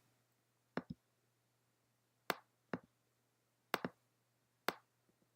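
Scattered clicking at a computer mouse and keyboard: seven short clicks, two of them quick double clicks, about a second in and near four seconds in.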